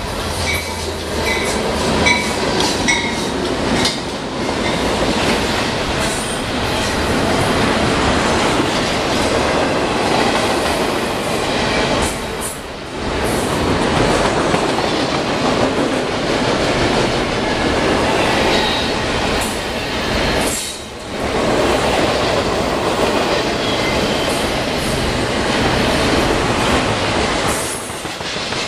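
CSX long double-stack intermodal freight train rolling past at close range: a loud, steady din of wheels on rail and rattling cars that dips briefly twice.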